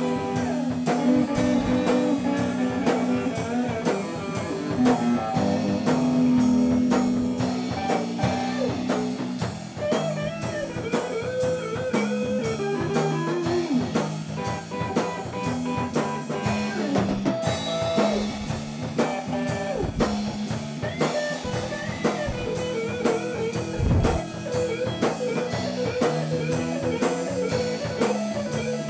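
Blues-rock band playing an instrumental passage: electric guitar lines with bending notes over a steady drum-kit beat.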